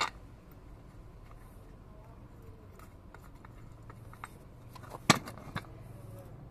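Metal tools and parts clinking and knocking as they are handled, with a sharp metallic click about five seconds in and another just after, over a faint low hum.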